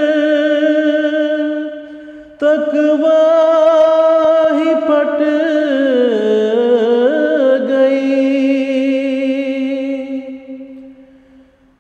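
Wordless sustained singing between verses of a sung Urdu nazm. Two long held phrases with vibrato: the first breaks off about two seconds in, and the second starts just after, slides down in pitch about halfway through and fades out near the end.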